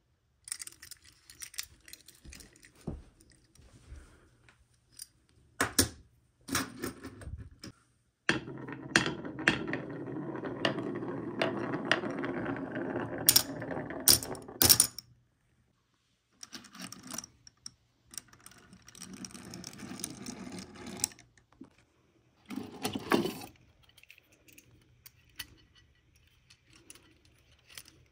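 Glass marbles rolling down the grooves of a wooden marble-run slope with a steady rumble for several seconds, then clicking sharply as they drop into the metal bed of a die-cast toy dump truck. Before and after, light clicks and rattles of die-cast toy trucks being handled.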